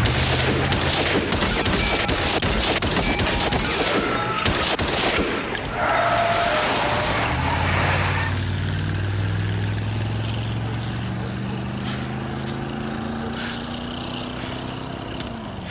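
A rapid volley of handgun shots, many in quick succession over about the first five seconds, then a low steady drone takes over.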